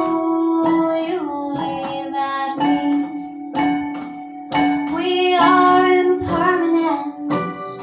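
A woman singing a slow song over instrumental accompaniment, holding long notes that slide from one pitch to the next without clear words.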